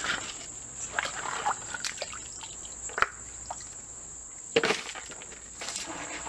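Small hand shovel digging wet gravel from a shallow stream bed and tipping it into a plastic screen pan: scattered knocks and clatters of stones, the sharpest about four and a half seconds in, with water sloshing.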